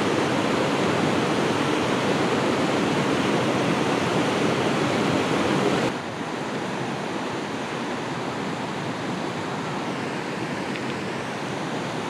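Waterfall running, a steady rushing roar of falling water that drops suddenly to a quieter level about six seconds in.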